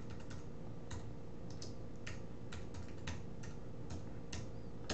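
Typing on a computer keyboard: an irregular run of light keystroke clicks, about fifteen in all.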